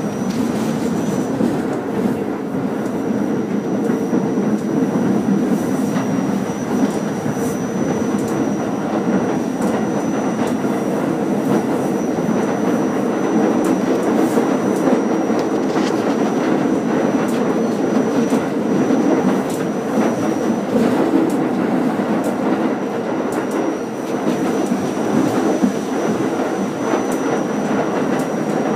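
R44 subway car running on the Staten Island Railway, heard from inside the car: a steady rumble with wheels clicking over rail joints. A thin high whine runs through it and drops out briefly twice.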